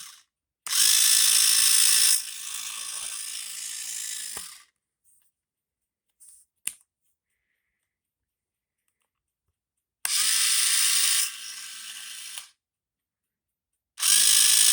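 Homemade power drill built around a small electric motor, switched on three times in short runs of its whine. Each run starts loud and then drops to a quieter level before cutting off, with a single click between the first two runs.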